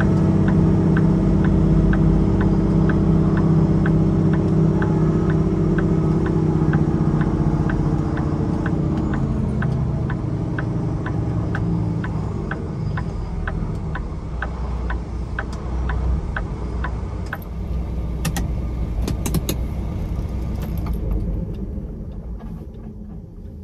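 Semi-truck engine running, heard from inside the cab, its hum dropping and quietening over the first half. A steady light ticking about twice a second runs alongside for most of it, followed by a few sharper clicks near the end.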